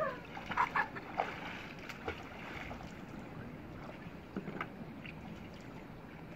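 Water splashing and sloshing as a person wades waist-deep in a muddy canal, with a few sharp splashes in the first second and a half and a couple more about four and a half seconds in, over the steady rush of flowing water.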